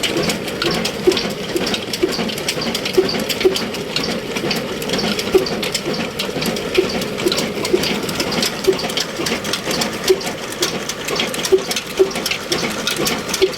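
Ruston Hornsby stationary diesel oil engine running: a fast mechanical clatter, with louder knocks at irregular intervals of roughly half a second to a second.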